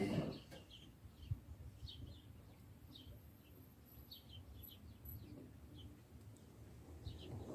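Indesit EcoTime washing machine's drum sound cuts off just after the start, leaving a quiet pause between spins with faint scattered bird chirps. Near the end the machine starts up again with a rising hum.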